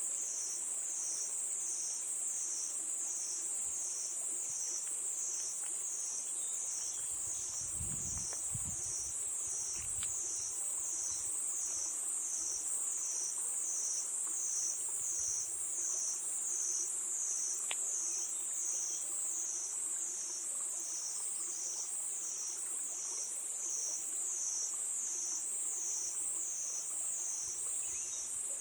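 Chorus of crickets: a steady high-pitched trill that swells and fades about once a second.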